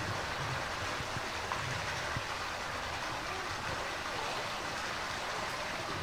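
Steady rush of running water, with a few faint clicks over it.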